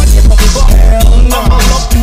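Hip-hop song with heavily boosted bass and a rapped vocal over the beat.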